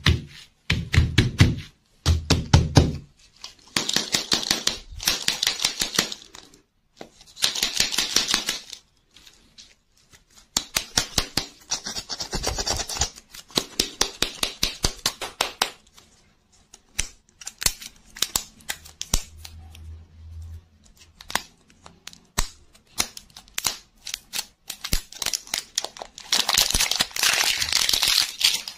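Crinkly printed wrappers being peeled and torn off ball-shaped toy lollipops, in several bursts of crackling, amid many sharp taps and clicks of fingers on the hard plastic shells. A few dull thumps come in the first seconds.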